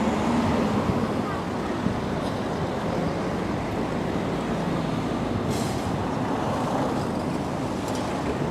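Steady low rumble of vehicle noise, running evenly without a clear start or stop.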